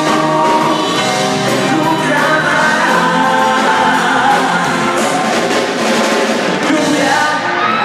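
Live band performance: several men singing into microphones over the band's instrumental backing.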